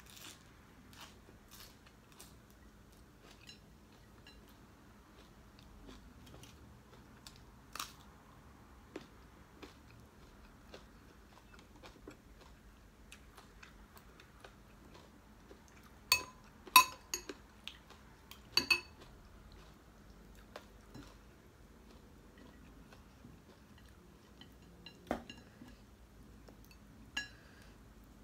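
A person eating with her hands: soft chewing and mouth sounds with scattered small clicks. A few sharper clinks of plates and dishes come just past halfway and again near the end.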